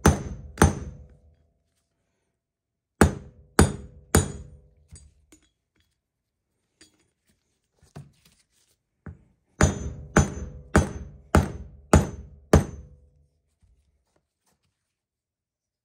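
Hammer blows driving a new bearing race into a 1977 Corvette front wheel hub, the race not yet fully seated. Two blows at the start, three more about three seconds in, then a run of six evenly spaced blows about half a second apart near ten seconds in. Each blow has a short metallic ring.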